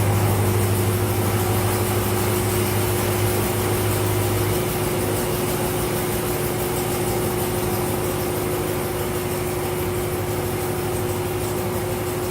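Supercharged 6.2-litre LT4 V8 of a C7 Corvette Z06 running at low speed with a proper naughty note. Its strong low drone drops away about four and a half seconds in, while a steady higher hum carries on throughout.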